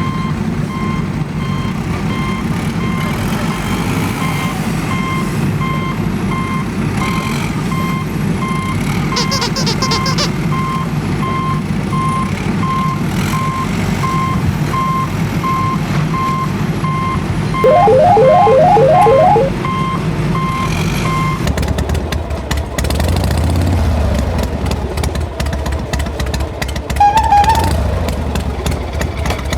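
Heavy vehicle engine running with a reversing alarm beeping about twice a second. Partway through, a brief louder warbling tone sounds. Later the beeping stops and a deeper engine rumble continues.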